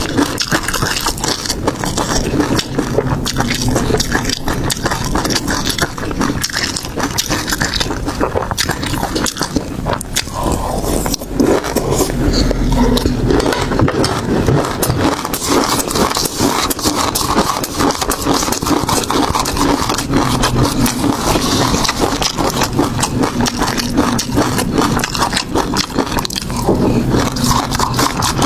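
Close-miked eating sounds: continuous chewing and crunching of seafood, with dense irregular clicks, crackles and wet mouth noises.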